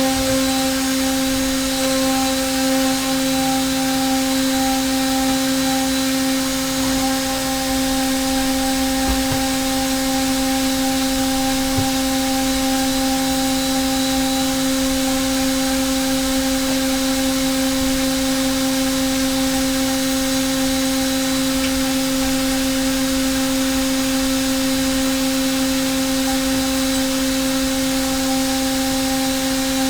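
A Hermle C400 machining centre's spindle driving a 4.5 mm three-flute carbide end mill through aluminium, dry, on a high-feed trochoidal iMachining roughing path. It makes a steady, even whine: one held pitched tone with overtones over a hiss of cutting noise.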